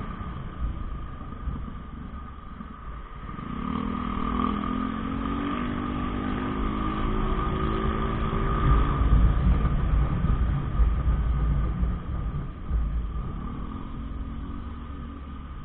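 Motorbike engine running under way, with wind rumbling on the mounted camera's microphone; about four seconds in the engine note climbs gradually as the bike accelerates, easing off around nine seconds and rising again briefly near the end. A steady high whine sits underneath.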